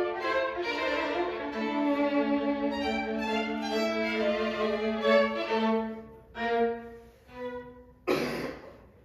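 String trio of two violins and viola playing sustained bowed chords that thin out into a few separate, fading notes after about six seconds. A short cough sounds about a second before the end.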